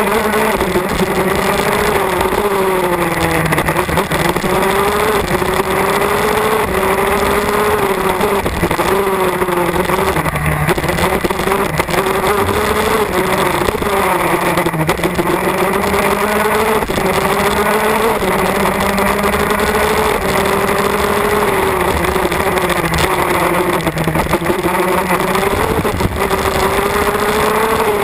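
MAC Minarelli 125cc two-stroke KZ gearbox kart engine racing at close range, its revs climbing and dropping over and over through gear changes and corners.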